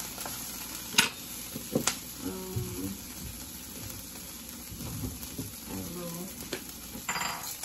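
Broccoli frying in oil in a nonstick skillet on a gas burner: a steady, even sizzle. A couple of sharp knocks come in the first two seconds.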